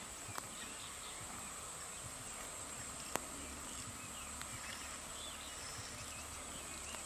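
Insects droning in a steady, high, even hum, with faint scattered chirps, and two sharp clicks: a small one just after the start and a louder one about three seconds in.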